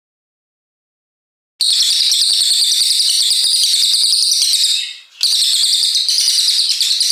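Cililin coklat (brown cililin) songbird singing a long, rapid, shrill chattering phrase. It starts about a second and a half in, breaks off briefly near five seconds, then resumes.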